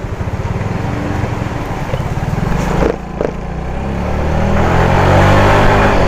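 Yamaha Mio i 125 scooter's single-cylinder four-stroke engine running under way, getting louder from about halfway as the scooter accelerates.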